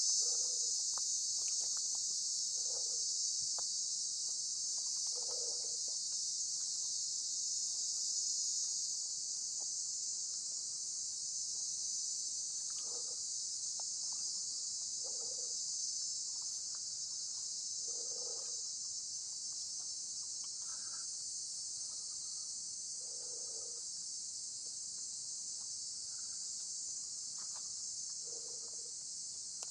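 Dense, steady high-pitched insect chorus, with faint low sounds every few seconds underneath.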